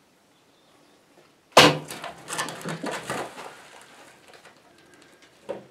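A recurve bow shot about one and a half seconds in, a sudden sharp smack, followed by about two seconds of clattering hooves and splashing as a sable antelope bull bolts through the shallow waterhole, fading out. A short knock near the end.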